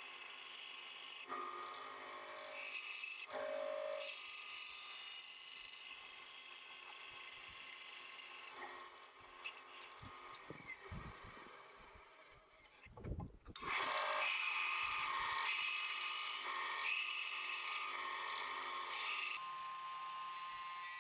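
Band saw cutting small wooden crankbait blanks: the blade running through wood, fairly quiet and changing in tone from cut to cut, with a brief break a little past halfway. Near the end a steady tone sets in as a WEN 4"×36" belt / 6" disc sander takes over.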